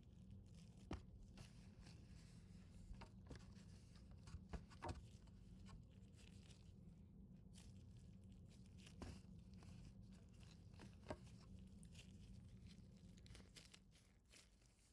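Near silence with faint, scattered clicks and crackles of clay slime being squeezed and stretched by hand.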